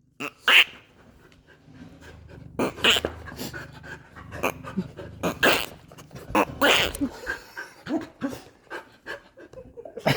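A dog panting in short, irregular breathy huffs.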